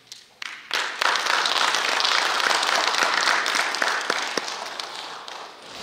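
Audience applauding. The clapping swells about a second in, holds steady, then tapers off near the end.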